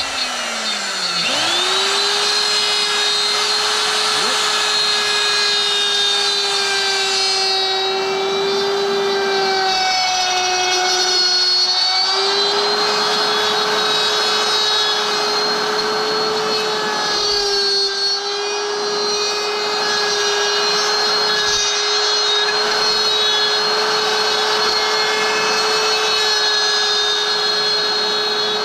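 An electric power tool motor spins up and runs steadily with a high whine. Its pitch drops slightly for a moment about ten seconds in, then settles back.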